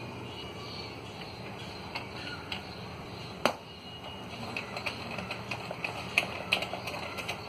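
Light taps and clicks of a metal sev maker (noodle press) being handled as it is filled with hot cornflour dough. There is one sharp knock about three and a half seconds in, then a quick run of small clicks near the end.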